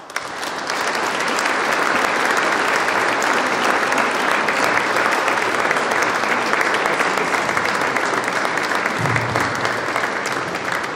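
Large audience applauding, dense steady clapping that starts straight away and carries on evenly.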